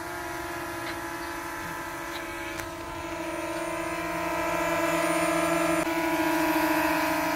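Eachine EX5 quadcopter's brushless motors and propellers whining steadily in flight, several pitches sounding at once, growing louder a few seconds in as the drone lifts off and hovers close.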